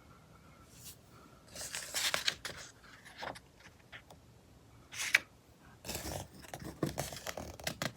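Glossy magazine pages being turned by hand: paper rustling and flapping in a few short bursts.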